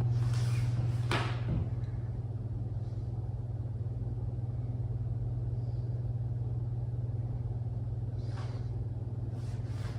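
Steady low hum at one pitch, with a few brief swishing sounds in the first second or so and again near the end.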